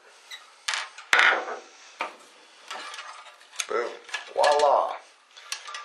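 Ballast housing of a metal halide high bay fixture being pulled apart and handled on a wooden tabletop: a series of knocks and clatters from the casing halves and tools, with a sharp knock about a second in and louder scraping and clattering about four to five seconds in.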